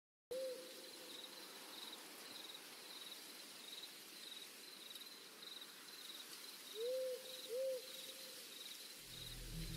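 Night forest ambience: an insect chirping steadily in a high, even pulse, with owl hoots, one just after the start and two close together about seven seconds in. A low musical drone begins to swell near the end.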